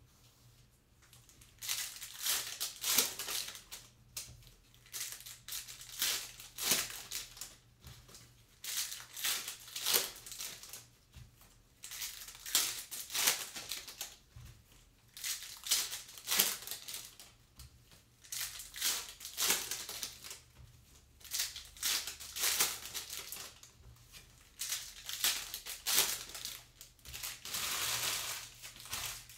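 Trading-card pack wrappers crinkling and cards being slid and flipped one over another in gloved hands: a long run of short, crisp rustles in clusters with brief pauses between.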